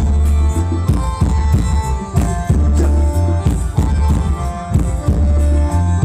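Live band playing Thai ramwong dance music: a steady drum-kit beat over deep pulsing bass, with held melody notes above.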